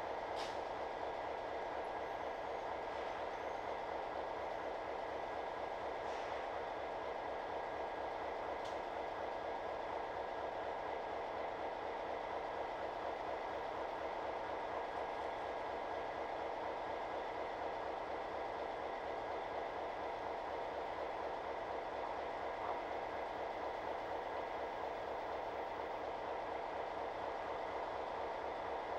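Diesel switching locomotive running steadily, an even low throb with a faint high hum, and a few faint clicks.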